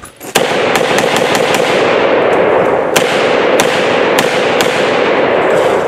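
Micro Draco 7.62×39 AK pistol fired in a rapid semi-auto string of about ten shots, quick at first and then spaced about half a second apart, the blasts and their echoes running together into one continuous roar.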